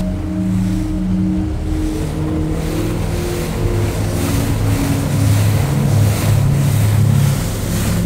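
Ambient soundtrack of a steady boat-engine drone with water and wave noise, under low held synth-like notes that shift to a new pitch every second or so.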